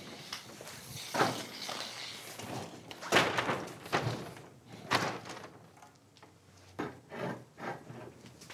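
A large board and a small desk lamp being carried and handled: a string of knocks and thuds with rustling between them, the loudest about three seconds in.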